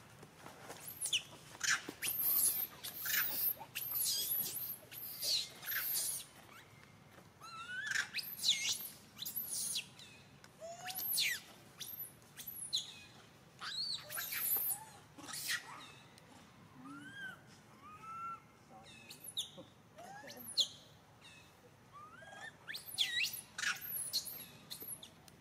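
Birds chirping: repeated clusters of quick, thin, high-pitched falling notes, with a few lower, softer arched notes past the middle.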